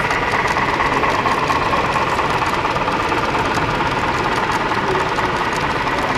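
HO-scale model steam train, an IHC 2-10-2 with a Tsunami 2 sound decoder pulling a string of coal hoppers, running steadily along the track: an even mechanical engine sound with faint repeated ticks.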